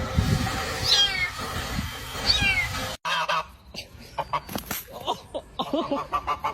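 A cat meowing twice, two short high calls that fall in pitch, over a low rumble. After a sudden cut, a run of small clicks and knocks with a few short pitched sounds.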